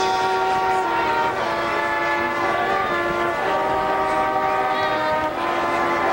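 Marching band playing, its horns holding loud sustained chords that move to a new chord every half second to a second.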